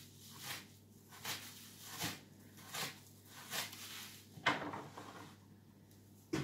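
Soft scraping strokes from a kitchen utensil at work, about one every three-quarters of a second, with a sharper, louder stroke near the end.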